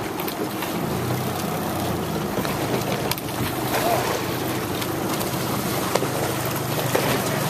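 Sweep oars of an eight-seat rowing shell working through the water, splashing, with a few sharp knocks. Wind buffets the microphone, and a low steady hum sets in about a second in.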